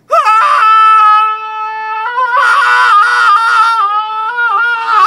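A man screams one long, high held note into a foam sound-deadening panel held up in front of his face, testing whether it deadens the sound. The scream is loudest for the first second or so, dips a little, then swells again.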